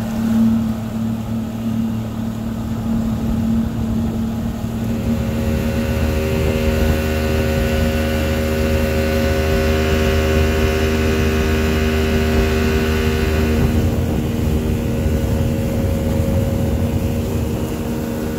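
Motorboat engine running under way, a steady drone over a low rush of water and wind. The engine note grows fuller and a little louder about five seconds in, then eases back around fourteen seconds.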